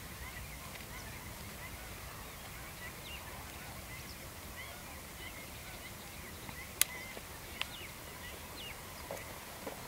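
Birds chirping and calling continually, over a low outdoor rumble. A single sharp snip about seven seconds in, from hand shears cutting a green chilli off the plant, with a fainter click just after.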